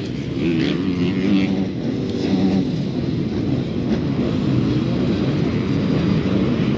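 A pack of racing dirt bikes running together, many engines revving at once with their pitches wavering and overlapping.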